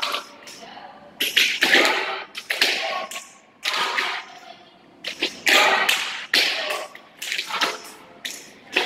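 Tap shoes striking a wooden floor: quick clusters of sharp clicks, roughly one cluster a second, with short quieter gaps between.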